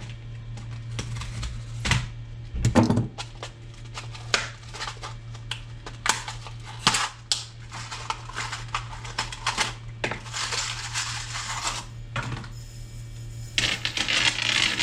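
Light metal chain being handled on a table: a run of irregular clicks and clinks, with a couple of louder knocks and stretches of rattling as the links are pulled along.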